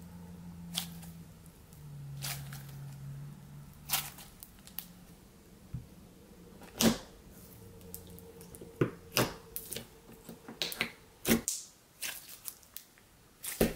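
Thick white slime being squeezed, stretched and poked by hand, making irregular sharp clicks and pops as air pockets burst, a dozen or so over the stretch.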